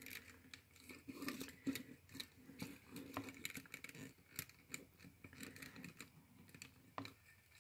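Quiet, irregular clicks and light rubbing of small plastic action-figure parts as fingers pose a tiny pilot figure's arms and hands in a mech's cockpit.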